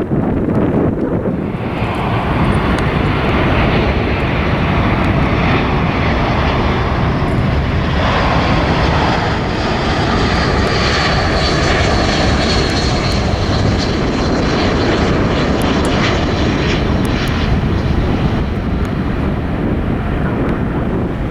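Jet airliner's engines passing, a loud rushing sound that builds about two seconds in and holds, with a high whine that slowly falls in pitch around the middle. Wind buffets the microphone throughout.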